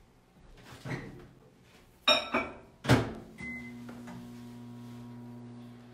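Microwave oven being loaded and started: a few sharp clattering knocks and a door shutting about two to three seconds in, a short keypad beep, then the oven running with a steady low hum as it heats butter to melt it.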